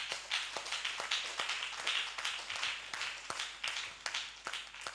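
Hands clapping in a short round of applause, a dense run of claps that thins out and stops near the end.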